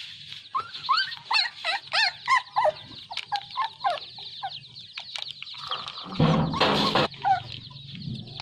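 Chickens calling in a yard: a run of short, curved, pitched calls over the first four seconds or so. About six seconds in there is a loud rustling noise lasting about a second.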